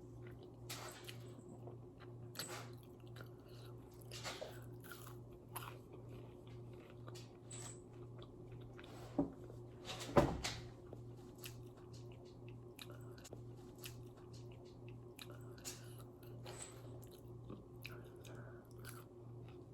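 A person chewing and biting food close to the microphone: soft, faint mouth sounds with scattered small crunches, and two louder bites a second apart near the middle. A steady low electrical hum sits underneath.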